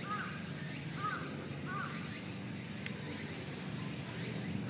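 Short arched bird chirps, one about every second, over a low steady outdoor murmur, with a thin high steady tone through the middle and a single sharp click near the end.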